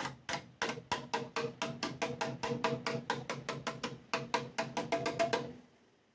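A small hammer tapping rapidly and evenly on the welded steel of a car door panel, about five or six sharp metallic taps a second, each with a short ring. The taps stop about five and a half seconds in.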